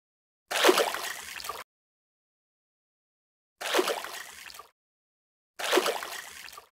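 Liquid gurgling sound effect, heard three times in short bursts of about a second each, standing for fuel being sucked through the fuel pump into the carburettor.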